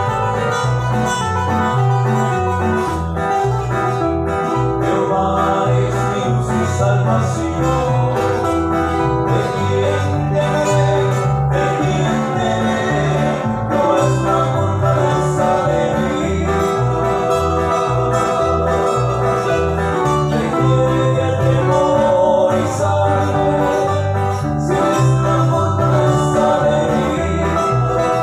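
Live band music: two acoustic guitars playing over an electric bass line, steady and rhythmic.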